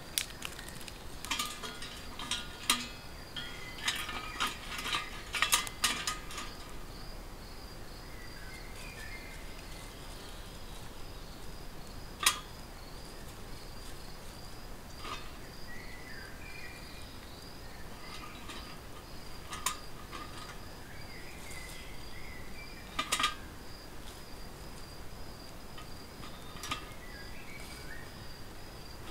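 Dry twigs snapping and clinking against a small folding metal pocket wood stove as they are fed into the fire: a quick run of sharp clicks over the first several seconds, then single ones now and then. An insect chirps steadily throughout in a fast, even pulse.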